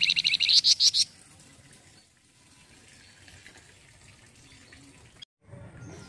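Caged flamboyan songbird giving a fast, high chattering trill of about ten notes a second, which breaks off about a second in.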